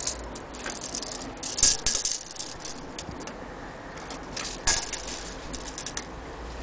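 Steel tape measure rattling and clattering as it is handled, in short irregular runs of clicks, loudest about two seconds in and again near five seconds.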